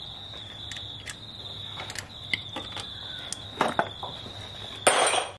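Scattered light metallic clicks and taps of a steel pick tool working among the valve tappets of an open engine cylinder head, with a brief louder burst of noise near the end. Crickets chirp steadily in the background.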